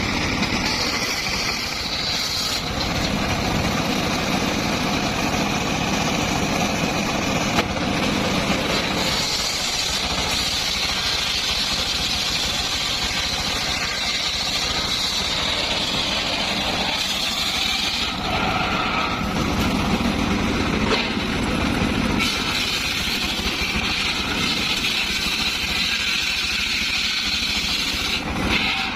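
Circular sawmill running with a steady mechanical drone. A higher whine from the blade comes in during several long stretches of cutting through wood.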